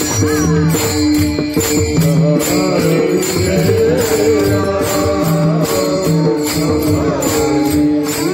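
Warkari devotional bhajan music: a pakhawaj barrel drum beats a steady rhythm under hand cymbals (taal) clashing evenly, with sustained held melody notes and a voice singing in the middle.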